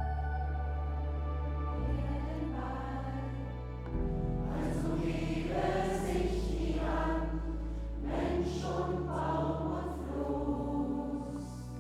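Choir singing over slow, sustained low bass notes that change every two seconds or so; the voices come in about four seconds in.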